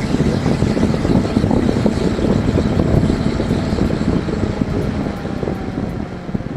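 Rosewill RFA-120 computer case fan running at 100% speed, giving a loud, steady rush of air. Near the end the sound starts to drop as the fan begins to slow.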